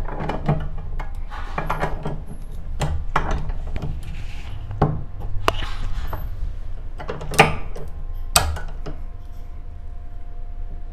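Scattered metal clicks and knocks of hand tools on shock absorber parts as the thread-locked nut on the piston rod is fastened, with two sharper knocks about seven and eight seconds in, over a low hum.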